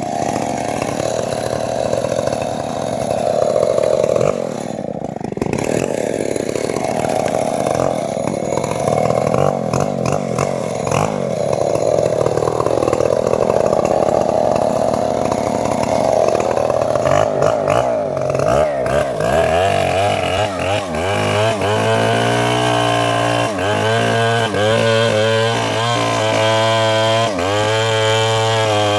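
Petrol-engined saw running under load while cutting teak, its pitch wavering as it bogs and recovers. About two-thirds of the way through, the engine speed starts rising and falling repeatedly.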